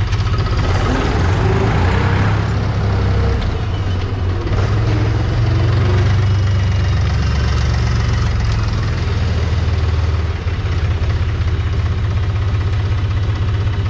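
McCormick International 453 tractor's diesel engine running while the tractor drives slowly, a steady low rumble whose level rises and falls a little and dips briefly near the end.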